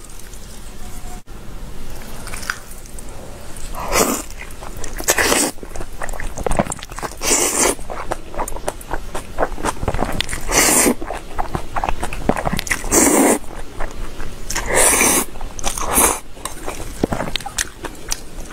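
A person eating jajangmyeon (black-bean noodles) from chopsticks: a run of about seven short, loud slurps a second or two apart, starting about four seconds in, with chewing between them.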